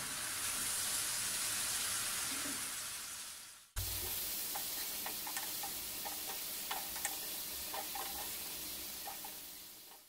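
Chopped onion, whole spices and ginger-garlic paste sizzling in oil in a frying pan while a wooden spoon stirs them, with light clicks of the spoon against the pan in the second half. The masala is being fried down with a splash of water. The sizzle fades and cuts off abruptly about three and a half seconds in, then resumes.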